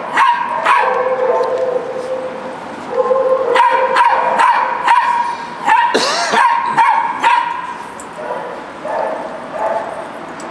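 Dogs barking and yipping over and over in quick, sharp barks, with a held whine between them. The barking eases off near the end.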